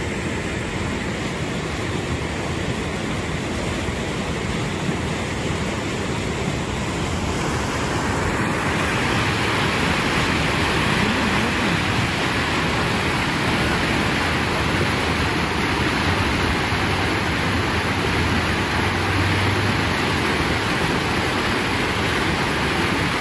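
Floodwater of the overflowing Salgado River rushing and churning over a concrete weir, a steady noise of fast water. It grows louder and brighter about eight seconds in.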